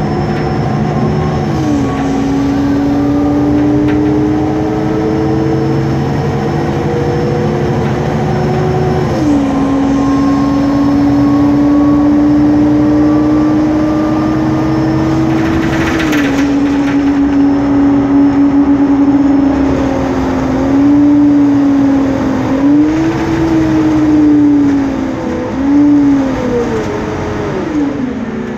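Loud whining drone of the noisy engine cooling fan of a MAN Lion's City CNG articulated bus, heard from inside the passenger cabin while under way, over the low rumble of the bus. The whine's pitch climbs slowly and drops back twice, then wavers up and down several times near the end.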